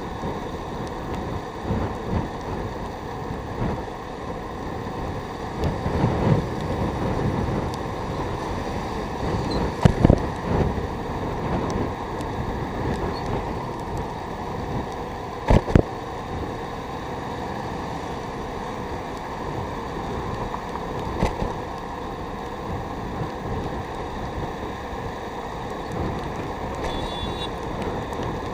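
Steady wind and road noise from a moving motorcycle or scooter, with wind buffeting the microphone. A few sharp knocks stand out, about ten seconds in and again about fifteen seconds in.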